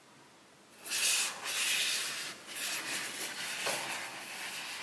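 Cardboard of a glossy iPhone box rubbing and sliding against white cotton gloves and against its own lid as it is handled and opened. A dry scraping starts about a second in and goes on in uneven strokes.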